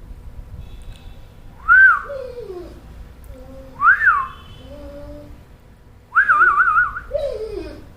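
Dog whining in three high-pitched cries about two seconds apart, each rising and falling and then trailing into a lower, falling moan; the third cry wavers up and down. It is the protesting whine of a dog annoyed at being tied up.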